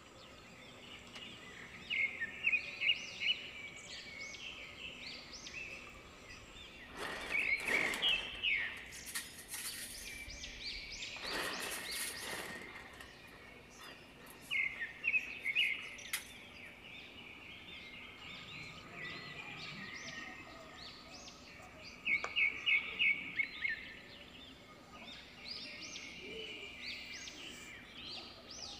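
Birds singing: short trills of rapid, high chirps that recur every several seconds over a steady background hiss. A louder rushing noise comes and goes about a third of the way through.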